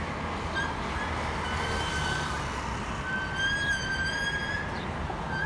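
City street traffic noise, with a long high whining tone that starts about half a second in, breaks off briefly and climbs slightly in pitch before fading near the end.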